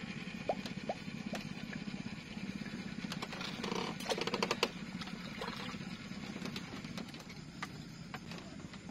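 A small engine running steadily in the background as a low, even drone. A few light clicks and taps from fishing tackle being handled come in the first second or so, and a denser patter of clicks comes a little before the middle.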